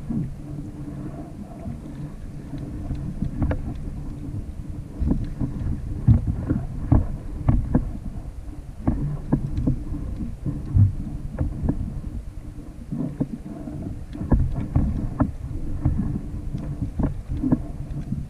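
Water slapping against a plastic fishing kayak's hull, with wind rumbling on the microphone and irregular knocks and clicks.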